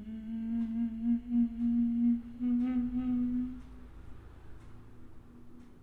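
A person humming one low, steady note, held about two seconds, broken briefly, then held again for more than a second before it fades to a faint drone.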